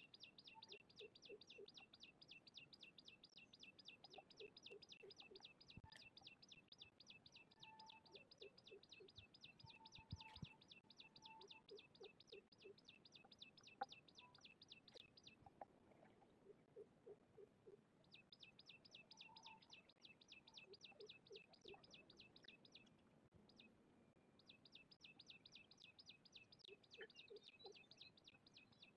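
Faint evening animal calling: a high, rapid chirping trill at about five pulses a second that runs for about fifteen seconds, breaks off, then resumes twice, with short lower calls in groups of three or four every couple of seconds beneath it.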